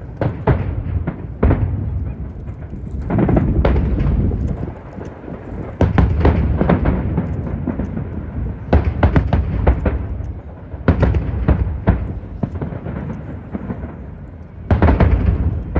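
Aerial fireworks bursting in quick volleys of sharp bangs over a deep rumble, easing off briefly between volleys before the next barrage.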